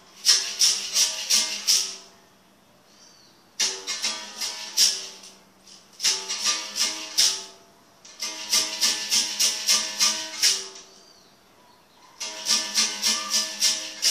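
Berimbau played: the stick strikes the steel wire in quick runs of strokes, each stroke with a caxixi rattle, the twang changing pitch between strokes. Five short runs come with brief pauses between them.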